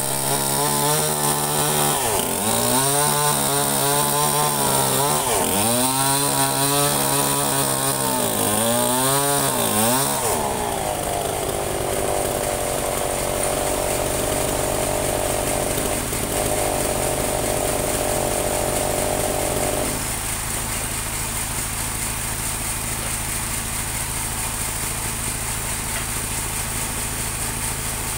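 Engine of a portable band sawmill running. For the first ten seconds its pitch repeatedly swells and sags, about every two seconds; then it settles into steady running and turns slightly quieter near twenty seconds.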